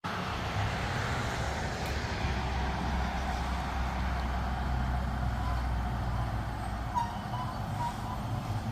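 Fire apparatus engine running steadily with a low rumble. Near the end, a few short beeps at one high pitch sound over it.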